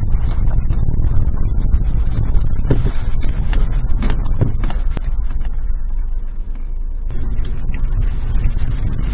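Suzuki Jimny Sierra driving on a dirt forest road: a steady low rumble of engine and tyres on gravel, with many small clicks and rattles from stones and the body. The rumble eases briefly about two-thirds of the way through.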